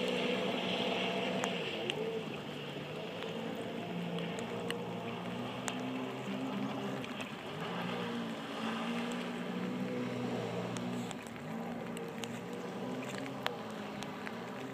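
Sea-Doo Spark personal watercraft's three-cylinder Rotax engine running at speed on open water, its pitch wavering up and down as the rider changes throttle. It gets slightly fainter after about two seconds as the craft pulls away.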